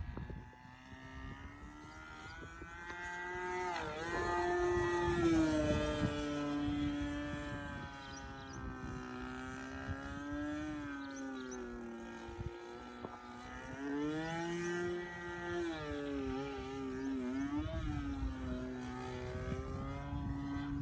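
The 20cc engine of a homemade RC profile plane running in flight. Its note climbs and dips several times as the plane manoeuvres overhead, and it is loudest about four to six seconds in.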